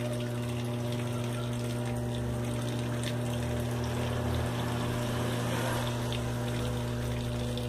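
Washing machine running: a steady electric hum from its motor or pump over the sound of water moving inside it.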